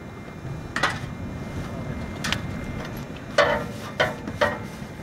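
Metal tools clinking and tapping against metal parts: five sharp clanks, each with a short ring, over a steady low rumble.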